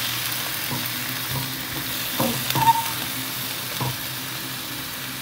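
Pork and vegetables sizzling in a wok as they are stir-fried until just cooked, a metal wok ladle stirring and scraping through them. The ladle knocks against the wok a few times between about two and four seconds in, once with a short metallic ring.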